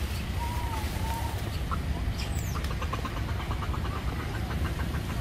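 Outdoor ambience with a steady low rumble. Animal calls sound over it: two short arched calls in the first second or so, a high falling whistle a little past two seconds in, then a fast run of chirps, about eight a second, through the second half.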